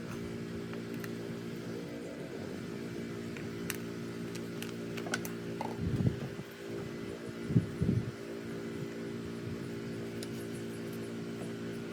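Small gasoline engine of a Simpson 3100 psi pressure washer running steadily, with brief swells about six and eight seconds in. It is running again after its carburetor was cleaned.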